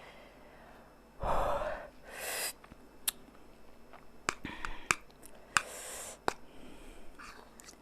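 A woman breathing hard and gasping, with hissing breaths through the mouth three times, as very spicy noodles burn her mouth. A few short sharp clicks come in between.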